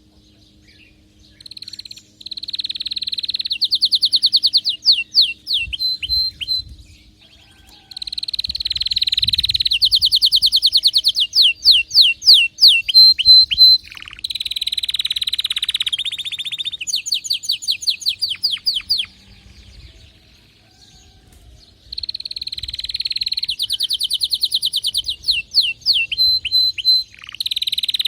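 Canary in breeding condition singing excitedly: three long phrases of fast trills and rapidly repeated high notes, with pauses of a second or two between them.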